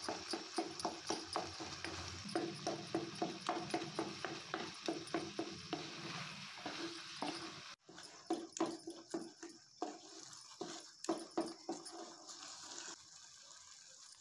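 Wooden spatula knocking and scraping against a metal kadai while mashing and stirring sweet potato into thick milk. The strokes come at about three a second for the first seven seconds, break off briefly near eight seconds, then come slower and more unevenly.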